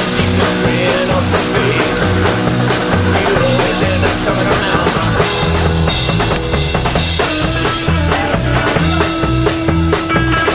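Rock music with a steady drum-kit beat and a bass line.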